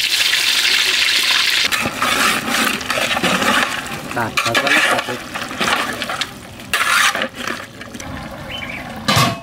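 Boiled eggs sizzling in hot oil in an iron karahi, a steady hiss that breaks off about two seconds in. Then uneven stirring and sizzling from a large aluminium pot of beef curry worked with a long spatula, with a short loud clatter near the end.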